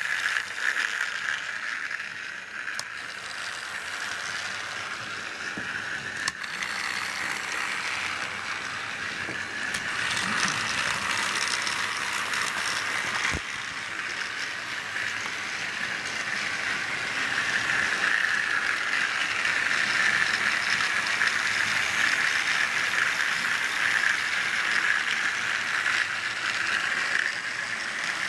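Battery-powered TrackMaster motorized toy engine (gold Thomas pulling a truck) whirring steadily as its small motor and gears drive it along plastic track. The whirr swells and fades and is louder in the second half, with an occasional sharp click.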